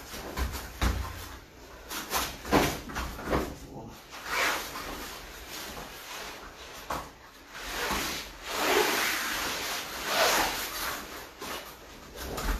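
Gi fabric and bodies rubbing and sliding on foam puzzle mats during shrimping and sprawling, irregular swishes with a few soft thuds about a second in.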